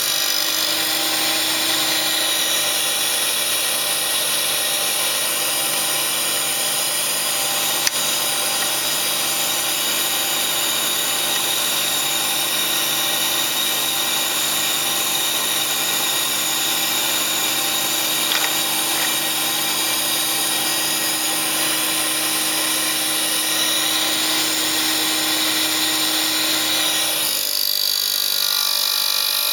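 Electric motor and grinding wheel of a homemade circular-saw sharpening machine running steadily. Its tone changes near the end, with a single sharp click early on.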